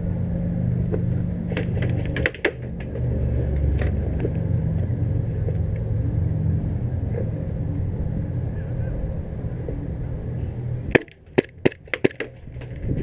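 Sharp snapping cracks of airsoft guns firing, a few about two seconds in and a quick run of about six near the end, over a steady low rumble.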